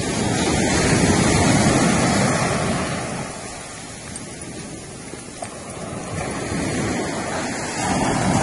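Sea waves washing in, in two surges: one swelling up about a second in and ebbing away, another building near the end.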